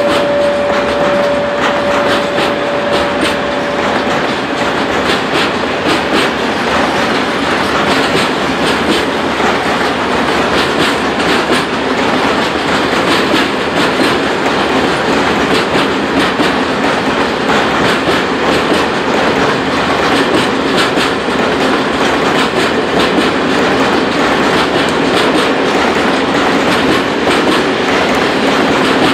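Freight train of loaded timber wagons rolling past, a steady rumble of wheels on rails with rapid clickety-clack over the rail joints. A steady high whine fades out within the first five seconds.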